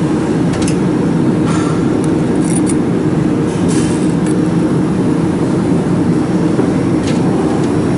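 Steady low hum from the running laser welding machine, with scattered light metallic clicks as an Allen key and clamp parts on the laser cavity are handled.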